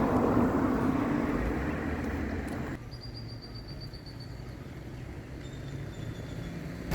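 Road and engine noise of a moving car heard from inside, a steady rumble that drops abruptly to a quieter low hum about three seconds in.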